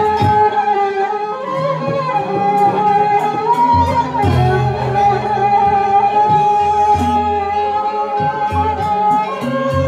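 Balinese gamelan music playing, with a held, wavering melody line over regular high cymbal-like ticks. A deep repeating pulse comes in about four seconds in.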